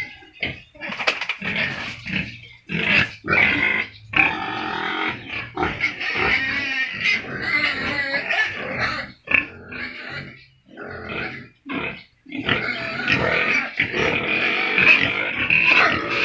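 A group of domestic pigs grunting and squealing: short calls at first, then long, loud stretches of squealing about four seconds in and again from about twelve seconds in.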